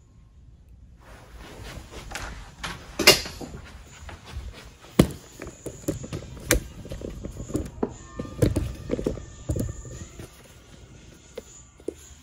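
Irregular knocks, thuds and rustles of a handheld camera being carried and moved around, with footsteps. It begins after a brief near-silence.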